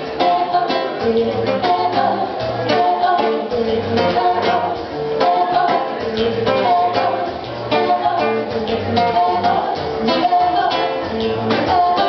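Live acoustic music: two women singing together to a strummed acoustic guitar, with a steady beat.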